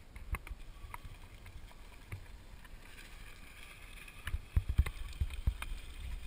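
Wind rumbling on the microphone, with scattered small clicks and heavier low thumps in the last two seconds.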